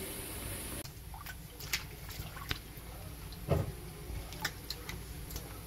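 Steady hiss of a pot of loofah gourds boiling for the first second. Then cooked loofah gourds handled in cold water in a sink: scattered drips, small splashes and clicks, with one louder thump-splash about three and a half seconds in.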